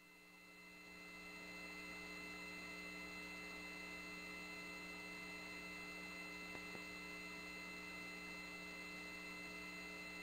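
Faint, steady electrical hum with light hiss on the launch-control communications audio feed between countdown calls. It comes in about a second in, after a moment of dead silence.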